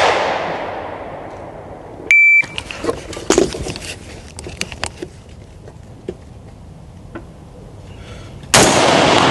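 A rifle shot at the start that rings out and dies away over about two seconds, and another loud shot near the end. About two seconds in comes a short, high electronic beep, and scattered light clicks fall between the shots.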